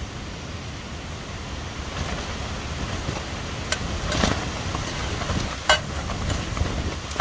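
Strong wind buffeting the microphone as a steady low rumble. A few sharp clicks stand out, the loudest about six seconds in.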